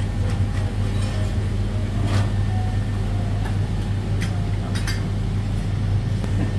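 Steady low hum of a restaurant kitchen's ventilation, with a few light clicks and clinks of utensils on steel bowls.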